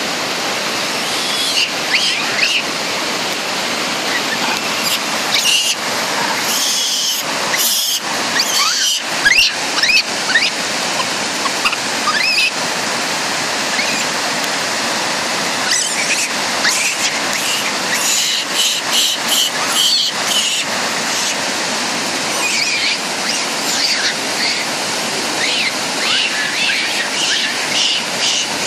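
Steady rush of a fast mountain river and waterfall over rocks, with many short high-pitched calls and squeaks scattered over it.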